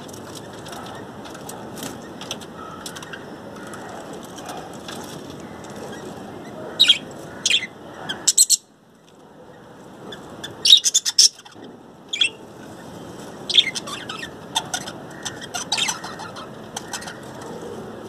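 Budgerigars chirping in an aviary: a constant background of chatter broken by clusters of sharp, high chirps, with the loudest bursts about seven to eight seconds in, again around eleven seconds, and near sixteen seconds.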